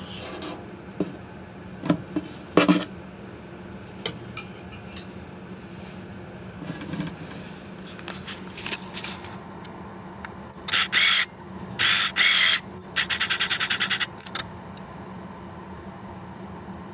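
Scattered short clicks, then three loud rasping, scraping bursts, the last with a fast, even rattle, over a steady low hum.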